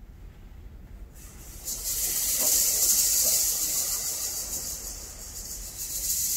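Concert band starting a piece with a soft hissing wash of noise that comes in about a second in and swells, eases off, then builds again near the end, with a few faint notes underneath.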